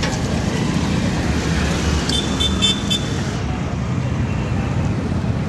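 Road traffic rumbling steadily, with a short high-pitched pulsed beeping lasting about a second, starting about two seconds in.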